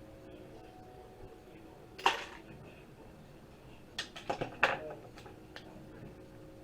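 Small metal clinks and knocks as a hard drive and hand tools are handled: one sharp clink about two seconds in, then a quick run of five or six clicks a couple of seconds later, with a faint steady hum underneath.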